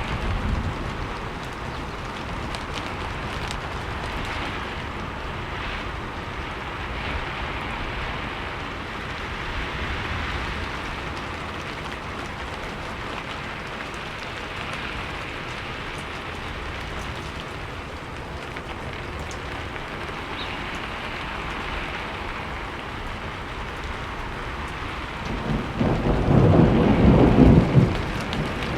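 Steady rain falling, an even hiss of drops. Near the end a roll of thunder rumbles for two or three seconds and is the loudest sound.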